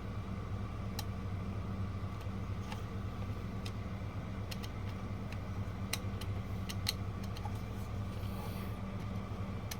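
Steady low hum, with a few faint scattered clicks of multimeter probes touching circuit-board component legs while MOSFETs are tested in diode mode.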